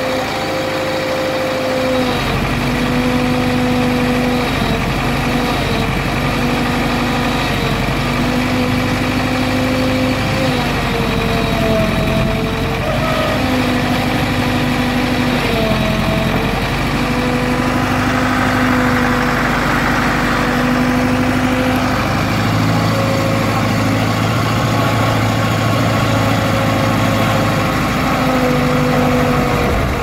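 JCB Model 4 backhoe loader's diesel engine running steadily while the backhoe digs. Its tone dips and recovers every few seconds as the hydraulics are worked.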